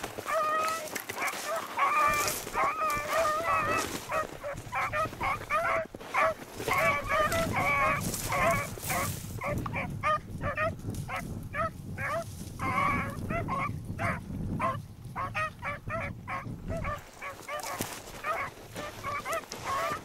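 Beagles baying on a rabbit's track: a run of short, repeated bays, several overlapping at once. Wind rumbles on the microphone from about six seconds in to about seventeen.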